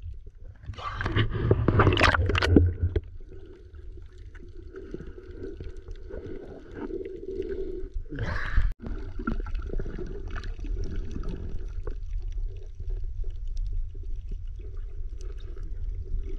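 Muffled water sound from a GoPro held underwater in shallow sea: a steady low rumble with gurgling, a loud splashing rush about a second in, and another brief splash about eight seconds in.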